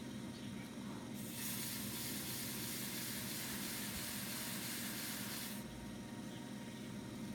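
A steel trimming blade shaves the rim of an eggshell-thin porcelain cup spinning on a potter's wheel: a steady hiss starting about a second in and stopping abruptly some four seconds later, over the wheel's low, steady hum.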